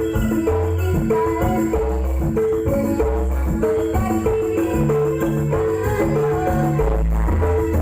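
Live jaranan gamelan music played loud through a PA sound system: a short figure of clipped metal-percussion notes repeats about twice a second over drum strokes and a heavy bass.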